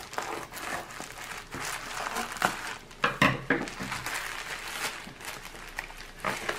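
Plastic packaging and film of a double-sided-adhesive diamond painting canvas crinkling as it is unwrapped and handled, in irregular rustles with a few louder, sharper crackles about three seconds in.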